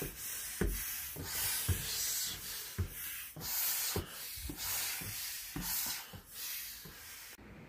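Plastic waffle blocks laid as flooring rub and scrape against each other as someone steps and shifts weight on them in stocking feet, with a soft footfall thump at each step. The noise they make underfoot is why they can't cover the whole floor. The sound stops abruptly near the end.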